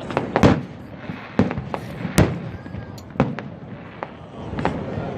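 Aerial fireworks bursting: a run of sharp bangs about a second apart, the loudest about two seconds in, with crackling between them.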